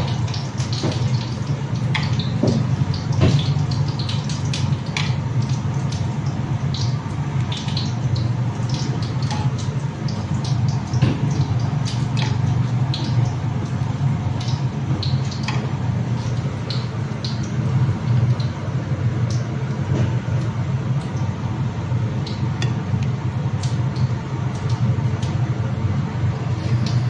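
Metal tongs clicking and tapping against a ceramic plate and the shrimp as they are moved about, many light clicks scattered throughout. Under them runs a steady rushing kitchen noise.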